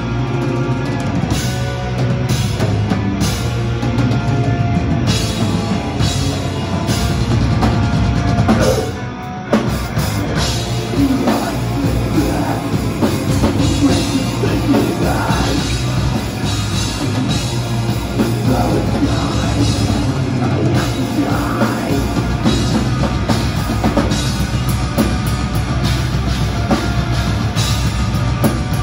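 Metal band playing live: distorted electric guitars and bass over a driving drum kit, with a singer's voice at times. The music briefly drops out for a moment about nine seconds in.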